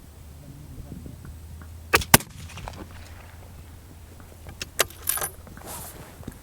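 A series of sharp metallic clicks and clacks: two loud ones in quick succession about two seconds in, then several lighter clicks and a brief rustle near the end, over a low steady hum.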